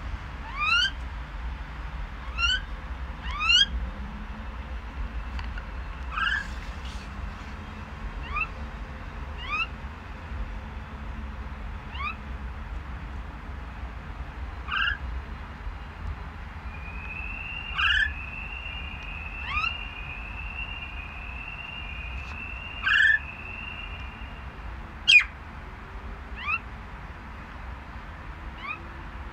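Caged common myna calling: short rising calls repeated every second or two, a fast run of repeated notes in the middle, and one sharp, loudest call a few seconds later.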